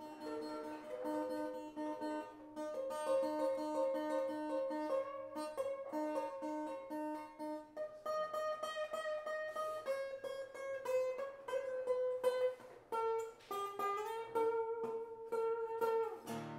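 Improvised acoustic guitar music played on a koa-wood guitar: picked notes over a repeated low note for the first half, then a melody of held notes that climbs and falls.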